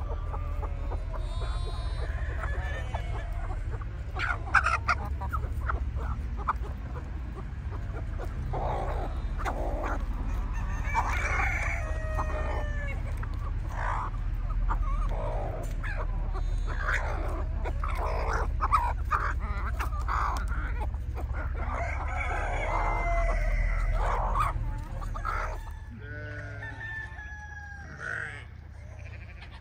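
A flock of domestic chickens calling: many hens clucking over and over, with roosters crowing now and then.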